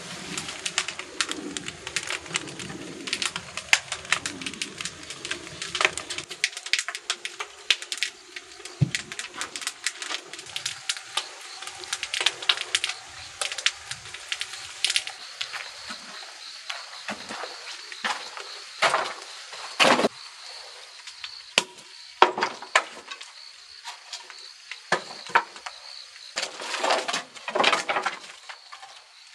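Scattered sharp clicks and crackles, with a low rumble for the first few seconds. A steady, high-pitched cricket trill joins about halfway through.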